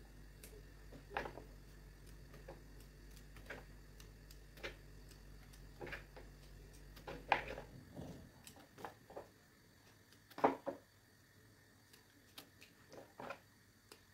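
Green beans being trimmed with a small knife: irregular sharp snaps and clicks as the stem ends are cut off. A low steady hum underneath stops a little past halfway.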